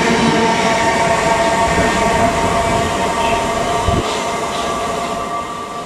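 South Western Railway suburban electric multiple unit running along the platform and away, with a steady whine over the rumble of its wheels, slowly fading as it leaves. A single thump about four seconds in.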